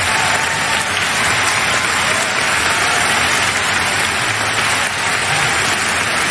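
Theatre audience applauding steadily, a dense, even clapping.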